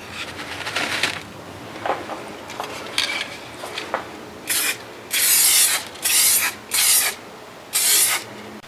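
Small metal handbrake parts being scrubbed and rubbed clean with irregular scraping strokes, then, about halfway in, five short, loud hissing spray bursts, the longest about half a second.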